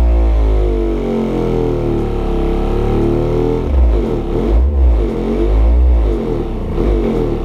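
Large SPL subwoofer with a Shocker Sig motor playing a bass test track on a bench: a deep held tone for the first few seconds, then pulsing bass notes from about halfway. Air rushes through its small, high-velocity pole vent, and the spiders add mechanical noise, so it is not a low-distortion driver.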